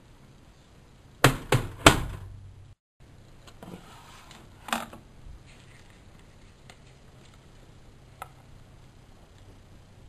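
Handling of a Bauknecht WAK7760 washing machine: three sharp knocks in quick succession about a second in, then a couple of softer knocks and a few faint clicks.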